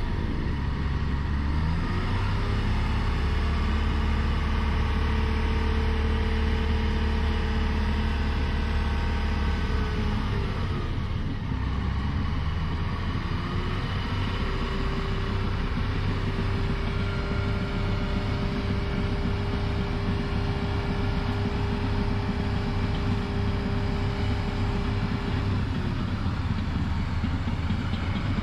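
Class A motorhome's engine running under load as it works through soft sand, over a steady deep rumble. Its pitch rises about two seconds in, drops back around eleven seconds, climbs again a few seconds later and eases off near the end.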